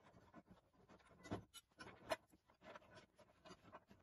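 Faint metal clicks and scrapes of a wrench turning a rusty nut off a steel bracket bolted to old cart timber, with a couple of louder knocks about a second and a half and two seconds in.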